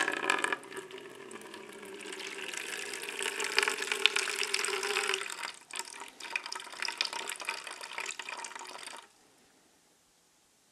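Water running into a container as it is measured out for a refractory cement mix. The pour is steady for about five seconds, then turns to intermittent splashing until it stops about nine seconds in.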